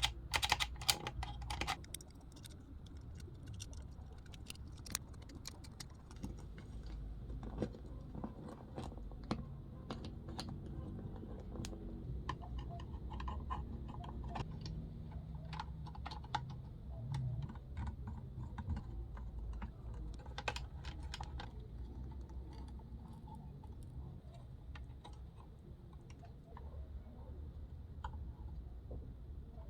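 Irregular light clicks and taps from small parts being handled, a quick cluster in the first couple of seconds and scattered ones after, over a steady low hum.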